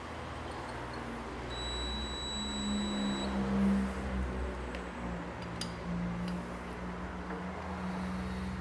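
A single high electronic beep lasting about two seconds, a second and a half in, over a steady low workshop hum, with a few light clicks later.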